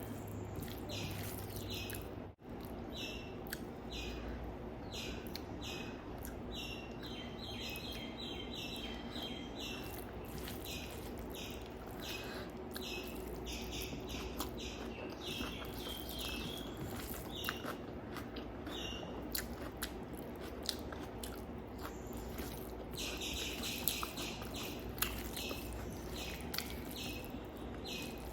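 Person chewing and eating a meal of curry, fried fish and rice, with small birds chirping in quick, repeated notes in the background over a steady low hum.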